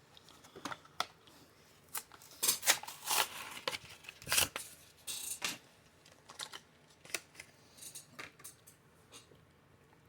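A Hot Wheels blister-card package being opened by hand: irregular crackling, rustling and ripping of plastic and cardboard, with sharp clicks, busiest in the first half.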